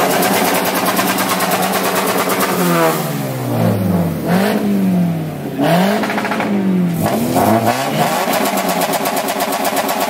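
Scion FR-S's flat-four boxer engine being revved in neutral, its pitch rising and falling in several blips before holding higher near the end.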